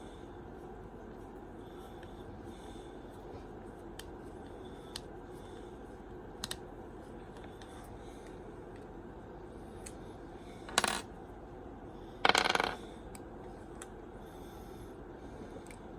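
Small metal parts clattering on a work surface: two short metallic clinks, about a second and a half apart, the second a little longer, with a few faint clicks of parts being handled before them.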